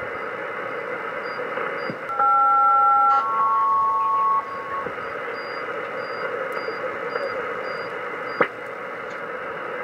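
Kenwood TS-450S HF transceiver in upper sideband hissing with open-channel band noise. About two seconds in, two steady two-tone chords of about a second each sound back to back, the pattern of an aeronautical SELCAL call to an aircraft. A short click comes near the end.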